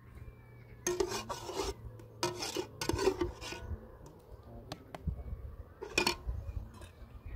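Metal ladle scraping against the bottom and sides of a metal cooking pot as stew is scooped out onto a metal plate. It comes in several short rasping strokes: about a second in, again from two to three and a half seconds, and once more at about six seconds.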